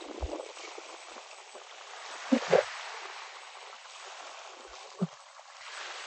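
Steady rush of sea water and wind past a moving boat. Two quick low thumps come about two and a half seconds in, and another about five seconds in.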